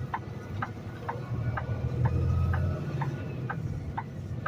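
Turn signal ticking steadily, about two clicks a second, inside a semi-truck cab, over the low rumble of the truck's engine.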